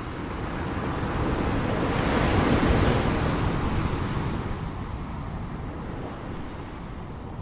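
Ocean waves breaking: one wave swells to a rushing peak about two and a half seconds in, then falls back to a steady wash of surf.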